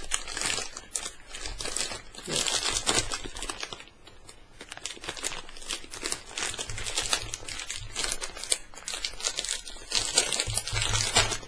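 Packaging crinkling and rustling as a pack of rubber twist ties is opened by hand, with some tearing, easing off briefly about a third of the way in.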